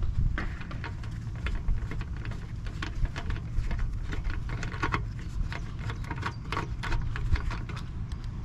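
Socket wrench clicking in quick, irregular runs as a 7 mm nut is unscrewed on an extension. The nut holds the ground connection of the rear turn-indicator lamp, which is suspected of a poor, intermittent contact.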